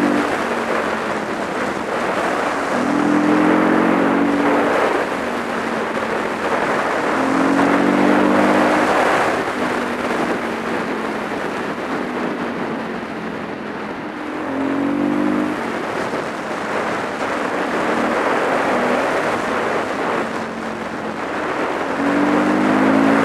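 Supermoto motorcycle engine pulling uphill, its note swelling up every few seconds under throttle, beneath heavy wind rush on the microphone.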